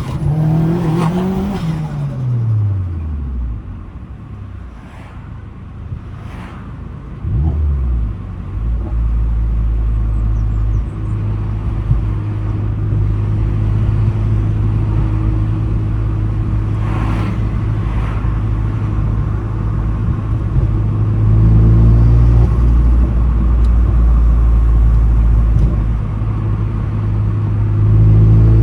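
Vauxhall Astra H VXR's turbocharged 2.0-litre four-cylinder engine, its revs falling away near the start, then running steadily with a loud low drone from about eight seconds in.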